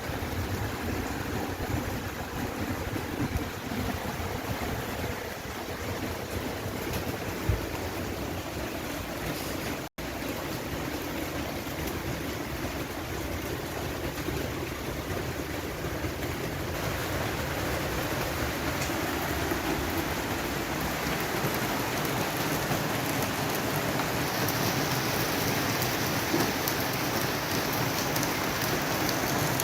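Steady rain falling, with wind rumbling on the microphone in the first part. The sound drops out briefly about a third of the way in, and after that the rain hiss grows gradually louder and brighter.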